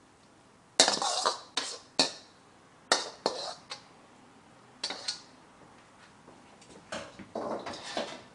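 Metal wok ladle clanking and scraping against a metal wok and the plate as stir-fried noodles are served: a string of sharp clanks and short scrapes, the first about a second in.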